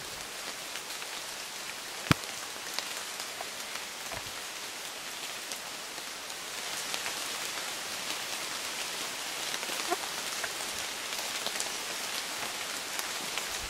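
Rain falling on forest foliage: a steady hiss of patter with many small drop ticks, growing a little heavier about halfway through. A single sharp tap stands out about two seconds in.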